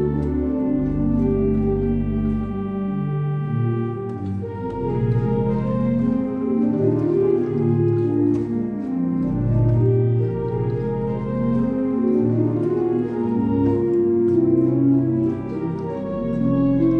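Pipe organ played on manuals and pedals: sustained chords moving over held low pedal notes that change every second or two.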